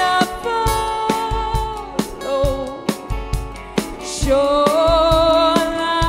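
Live song: a woman sings long held notes over a strummed acoustic guitar and a steady beat.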